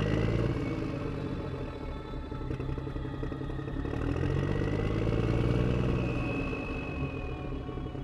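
A truck engine running, its low drone swelling in the middle and easing off near the end, with a faint high whine above it.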